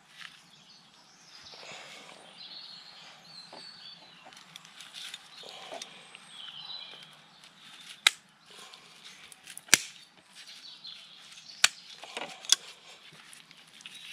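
Pruning shears snipping through a Japanese maple's roots: four sharp clicks in the second half, with birds chirping in the background.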